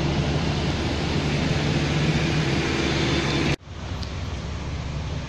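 A vehicle engine hums steadily close by over the hiss of traffic on the flooded road. About three and a half seconds in the sound cuts off abruptly, and only a quieter, even traffic hiss is left.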